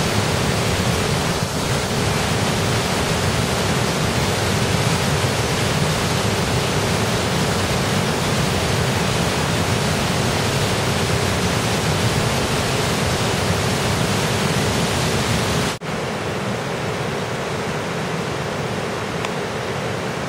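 Floodwater rushing in a swollen river, a steady loud rush of turbulent whitewater. It breaks off for an instant about three-quarters of the way through and carries on a little quieter.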